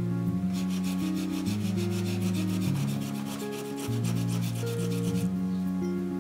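Rapid, even rasping strokes of food being rubbed across a small metal hand grater, about nine strokes a second for around five seconds, then stopping. Soft background music plays under it.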